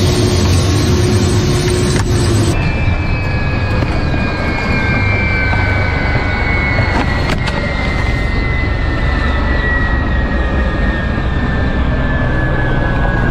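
Ka-52 helicopter's turbine engines winding down: a steady low rumble under a high whine that slides slowly down in pitch. About two and a half seconds in, the sound changes abruptly and the falling whine begins.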